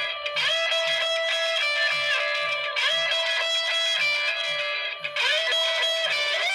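Nokia 6300 mobile phone playing a guitar-toned instrumental ringtone. A short melodic phrase loops about every two and a half seconds over a steady low pulse.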